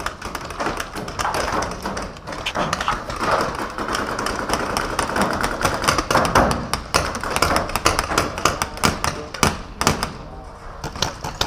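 Many quick, irregular shots from paintball-park guns, with knocks and thuds from shots landing around the shooters.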